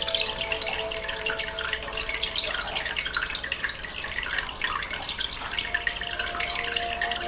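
Aquarium air bubbles bubbling steadily in the water, a dense fizz of small bubble sounds. Soft sustained music tones fade out about two and a half seconds in and come back near the end.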